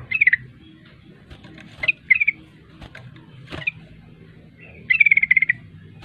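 Yellow-vented bulbul calling in short bursts of loud, rapid chattering notes: a quick falling phrase at the start, two brief notes near the two-second mark, and a longer rattling burst of about half a second near the end.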